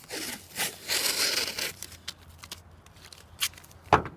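Blue painter's tape being pulled off its roll with a ripping peel, in a few pulls over the first two seconds, followed by a few light clicks and a sharp thump near the end.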